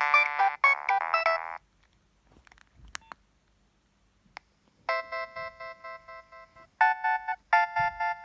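Preloaded ringtones playing through a Nokia 7250i phone's speaker. A melody of quick electronic notes stops about one and a half seconds in, and a few faint clicks follow. About five seconds in a new ringtone starts, with a long held note and then shorter repeated notes.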